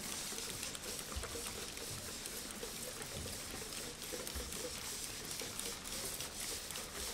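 Coloured ink shaken from cups and spattering onto a large sheet of paper: a soft, steady patter and hiss of fine droplets, with a few faint low thumps.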